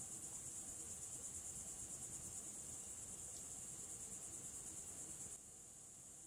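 Insects chirring in a steady, high, fast-pulsing trill, like crickets in a summer forest. The faint low background under it drops slightly about five seconds in.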